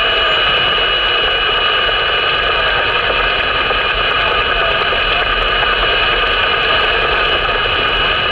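Steady loud hiss and static from a mobile CB radio receiver on 11-metre upper sideband: heavy band noise on the channel.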